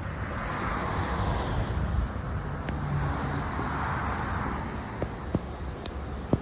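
Road traffic going by: two swells of passing-vehicle noise over a steady low rumble, with a few sharp clicks near the end.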